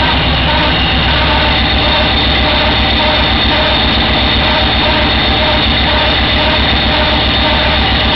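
Yamaha Raider's V-twin engine running steadily with a high-pitched whine over it. The whine comes from the generator and charging system acting up because a burned-out headlight left the circuit incomplete, not from the starter clutch the dealership blamed.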